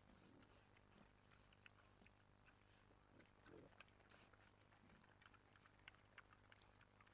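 Young pigs feeding: two faint low grunts, one near the start and one about three and a half seconds in, over many faint crunching clicks of chewing. A steady low hum runs underneath.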